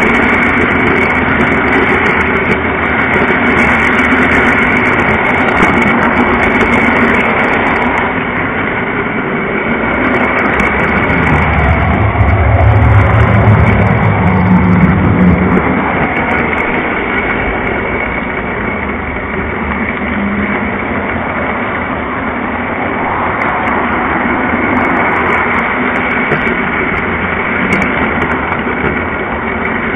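Lionel O-gauge model train's motor and wheels rumbling steadily along three-rail track, heard from on board the train. The rumble grows louder and deeper about twelve to fifteen seconds in, while the train runs through a tunnel.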